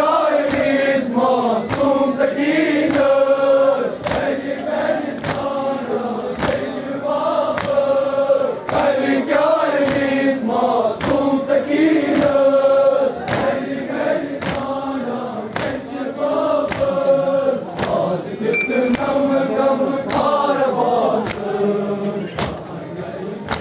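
Crowd of men chanting a Muharram lament (noha) in unison in long, held phrases, over a steady beat of sharp slaps, the rhythm of mourners beating their chests (matam).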